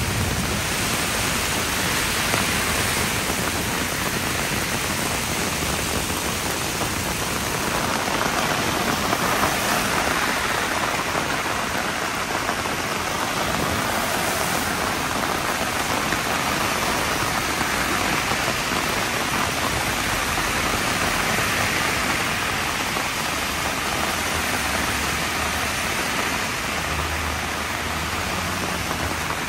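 Heavy downpour of rain: a steady, even hiss of rain falling hard.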